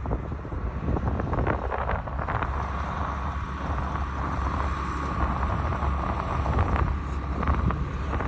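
Wind buffeting the microphone: a steady low rumble with a few brief rustles.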